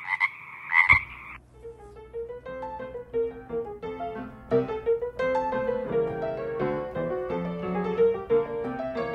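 A frog croaking, a rapid pulsing call, for about the first second and a half, then background piano music.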